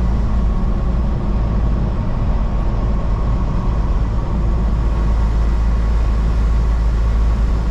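Steady low drone of a semi-truck's engine and road noise, heard inside the cab while driving.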